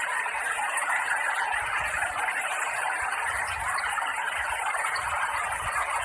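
Shallow stream running over stones: a steady rushing of water with no pauses.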